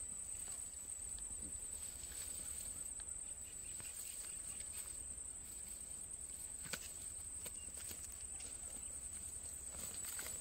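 Steady high-pitched chirring of insects in the grass, with rustling of dry grass stems and a few light clicks as the fishing nets are lifted and handled. Footsteps swish through the grass near the end.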